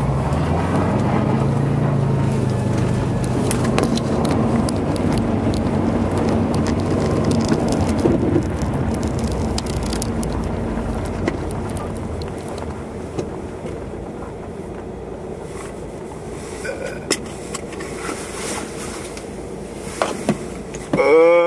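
Car engine running and tyres rolling over packed snow, heard from inside the cabin. The sound is steady and strongest through the first half, then gradually quietens as the car eases off.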